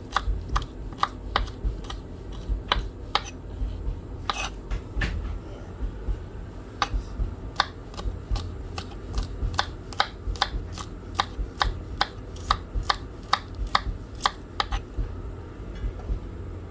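Knife chopping scallions on a cutting board: sharp, even strokes about two to three a second, with a short pause about five seconds in.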